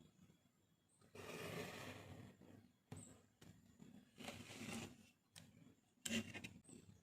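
Faint rubbing and scraping of wood: two strokes of about a second each, with a short knock in between and a sharper scrape or knock near the end.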